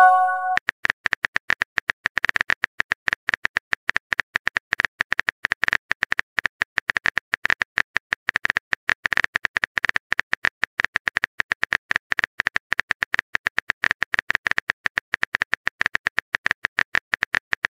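Rapid, irregular tapping clicks of a phone's on-screen keyboard as a text message is typed out. At the very start, the tail of a short pitched message chime.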